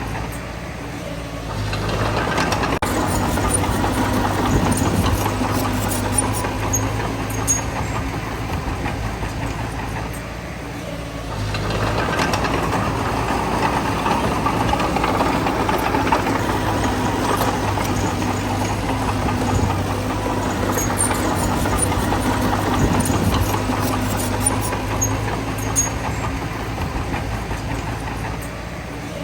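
Bulldozer's diesel engine working under load, with a steady low hum. It eases off briefly twice, just after the start and again about ten seconds in, then pulls hard again.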